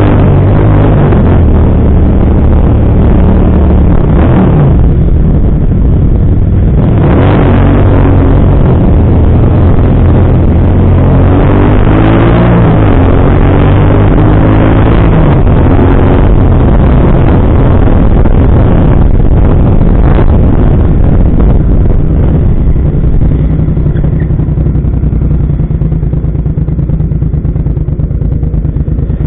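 Motorcycle engine running under way, its pitch rising as it accelerates a few times, then settling quieter near the end as the bike slows.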